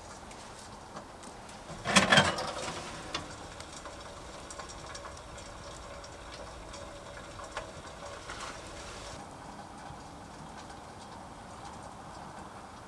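A short clatter of knocks, like pieces of wood being set down or knocked together, about two seconds in, then faint handling noise.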